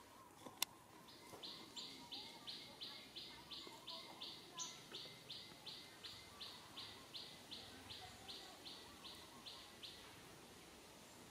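A high, chirping call repeated steadily about three times a second for some nine seconds, from a wild animal in the forest, with one sharp click just before it starts.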